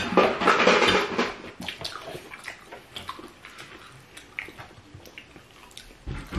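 Close-up eating sounds of crispy pata, deep-fried pork knuckle with crackling skin: a loud crunching burst in the first second, then scattered smaller crunches and clicks of chewing.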